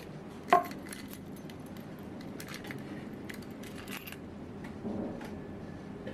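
Metal key ring and chain of a camera-shaped keychain clinking and jingling as it is handled, with one sharp clink about half a second in; the small clicks die away after about four seconds.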